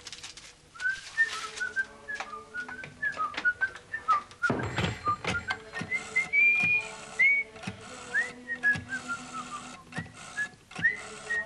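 A person whistling a tune in short, gliding notes, over clicks and knocks as a telephone handset is lifted and the phone is dialled, with a louder clatter about four and a half seconds in.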